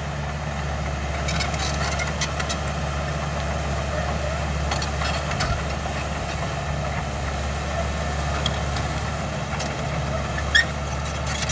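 CAT D5K XL bulldozer's diesel engine running steadily, with scattered light clicks and a sharper click about ten seconds in.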